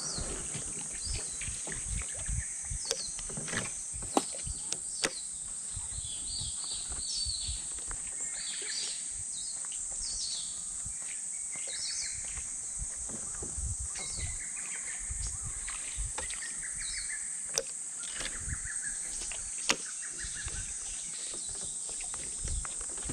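Outdoor ambience with scattered bird chirps over a steady high-pitched hiss, and occasional low bumps and a few sharp clicks.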